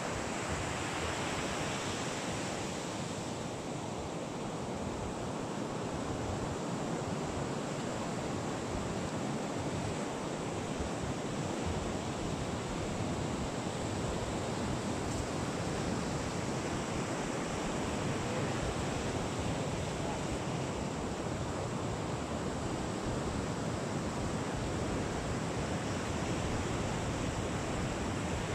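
Steady wash of sea surf with wind rumbling on the microphone, swelling and easing slowly.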